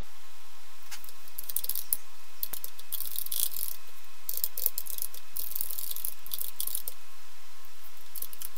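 Typing on a computer keyboard: bursts of rapid key clicks with short pauses between them.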